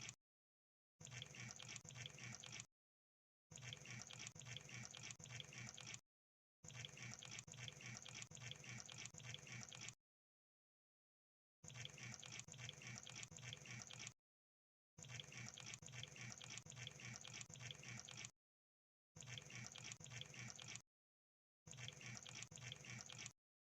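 Crab making rapid crackling clicks, in bursts of one to four seconds broken by gaps of dead silence, about seven bursts in all.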